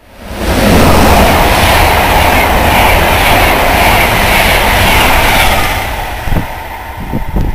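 Electric-hauled Intercity passenger train passing at speed close by: the rushing noise of wheels on rail builds within the first second and stays loud. It fades from about six seconds in as the train moves away.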